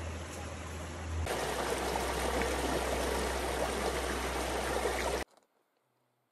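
Rocky mountain stream running, a steady rush of water. About a second in it jumps louder as rapids come in, then it cuts off abruptly about five seconds in, leaving near silence.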